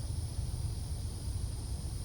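Outdoor background noise: a low, uneven rumble with a steady high hiss behind it.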